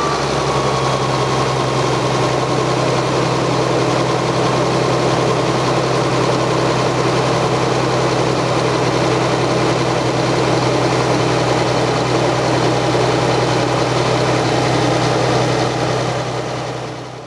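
Caterpillar 3126B six-cylinder diesel idling steadily, with a faint steady whine above the engine note, running smoothly with its new injection actuation pressure control valve fitted. The sound fades out near the end.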